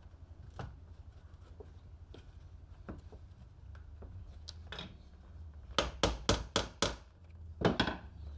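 Sharp knocks on a formed sheet-metal piece as it is pressed and tapped into place for a test fit. Light clicks and handling noises come first, then five quick knocks about six seconds in and two more near the end.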